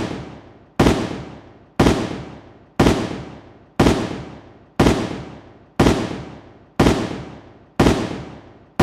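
Background music: a heavy booming hit about once a second, each one dying away slowly.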